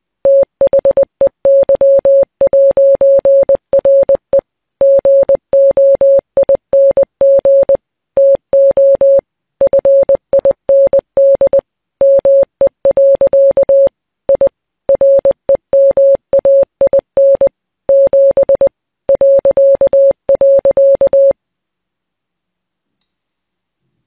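Morse code played as a single steady mid-pitched beep, keyed on and off in short and long tones grouped into letters and words, stopping a few seconds before the end.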